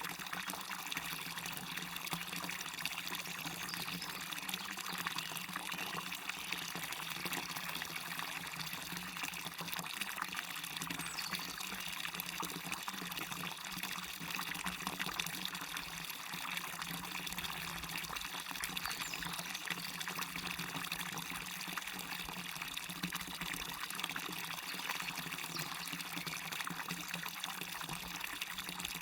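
Small waterfall splashing steadily into a stream: a constant pouring and trickling rush with no breaks.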